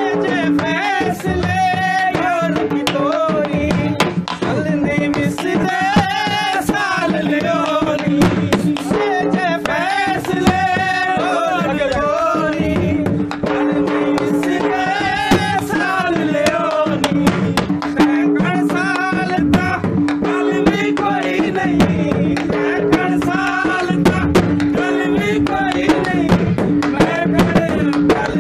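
South Asian folk music: fast hand-drum beats over a steady held drone, with a wavering melody line that bends up and down above it.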